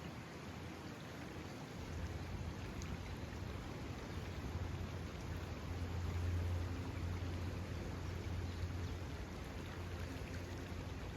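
Steady hiss of water at a natural lake, an even wash with no single splashes standing out. A low rumble comes up about two seconds in and is strongest near the middle.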